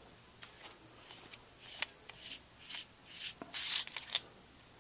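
Hands handling a metal flashlight: a series of short, quiet scrapes and rubs.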